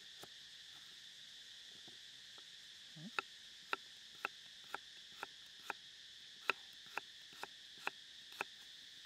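Kitchen knife chopping a raw carrot on a wooden chopping block, the blade knocking the wood about twice a second, starting about three seconds in.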